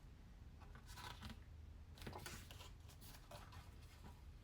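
Faint paper handling: pages of an album photo book being turned, a few soft swishes.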